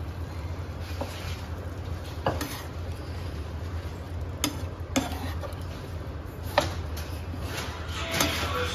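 Steel spatula stirring boiled chickpeas into masala in a frying pan, scraping and knocking sharply against the pan every second or two, over a steady low hum.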